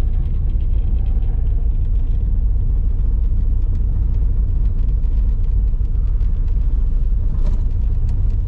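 A steady, loud low rumble with no distinct pitch or rhythm.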